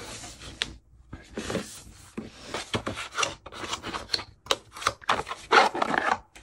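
Hands handling and opening a small cardboard box: cardboard rubbing and scraping with scattered clicks and taps.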